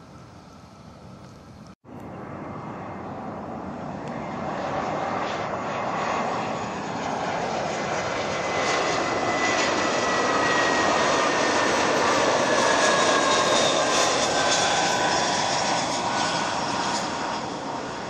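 Jet airliner passing close by: its engine noise swells over several seconds, peaks, then eases off, with a high whine that glides slowly down in pitch as it goes past.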